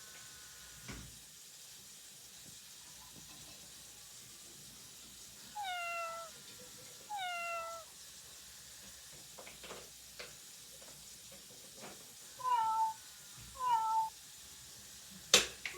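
Robot cat toy meowing: two falling meows about a second and a half apart, then two shorter meows near the end. A sharp click just before the end is the loudest sound.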